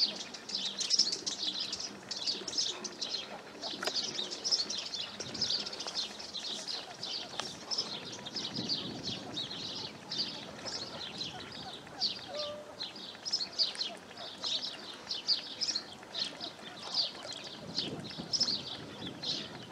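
Many small birds chirping at once, a dense chorus of short, high calls overlapping one another.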